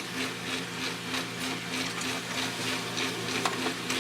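HP LaserJet P2055 laser printer starting up suddenly and printing a page at full speed, with a steady pulsing hum and ticking rattle. The drone persists despite a rebuilt fuser with new film sleeve, bushings and pressure roller, and the owner puts it down to the housing deforming with age.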